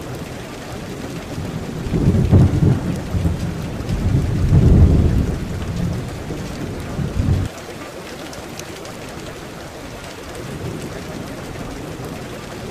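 Steady rain with rolling thunder: deep rumbles swell about two seconds in and again around four to five seconds, with a shorter one near seven seconds, then the rain goes on alone.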